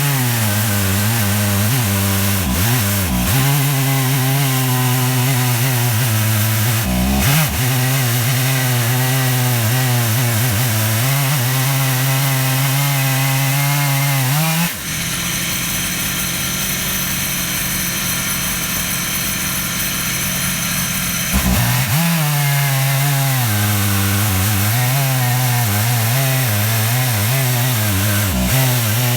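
Stihl 880's big two-stroke chainsaw engine running under load as its ripping chain cuts a black walnut log lengthwise on an Alaskan mill, the engine note wavering as it works. For several seconds past the middle the sound changes and drops slightly in level before the steady cutting note returns.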